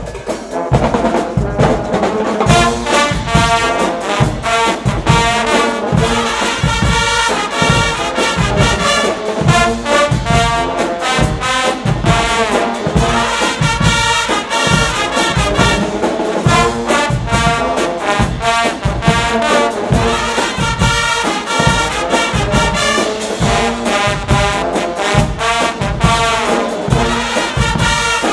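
Guggenmusik brass band playing loud, with trumpets, trombones and sousaphones together over a steady low beat about twice a second.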